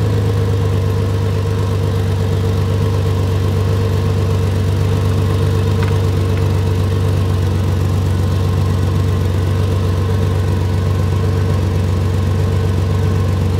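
2004 Ford Ranger engine idling steadily, heard close to an exhaust leak just ahead of the flex pipe, where unmuffled exhaust escapes with a low puttering.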